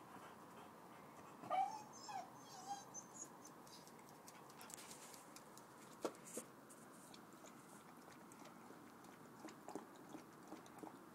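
A chow chow gives a few short whimpers about a second and a half in. After that it is mostly quiet, with a couple of sharp clicks and a few fainter taps as the dog noses into its plastic food bowl.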